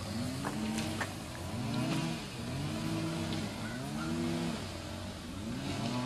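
An engine revving up and easing back down over and over, roughly once a second, with a few light clicks over it.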